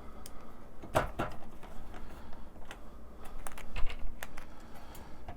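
Scattered light clicks and taps from handling the digital instrument cluster's back cover and screws as it is refitted, with a louder knock about a second in and another near four seconds.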